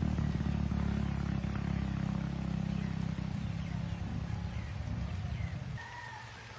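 Low, steady engine hum that drops away about six seconds in, followed near the end by one short, high, slightly falling call.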